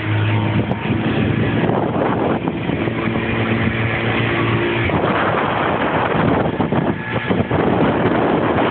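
Speedboat motor running at speed under way, a steady engine note under the rush of water and wind.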